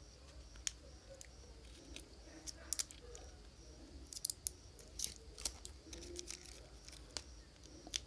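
Faint scattered clicks and crinkles from fingers handling a lithium-ion phone battery pack, picking at the tape and protection board at its end.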